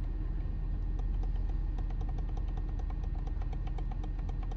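Ford F-450's diesel engine idling steadily, heard inside the cab, with a rapid run of faint clicks from the steering-wheel arrow button being worked to scroll through letters on the dash screen.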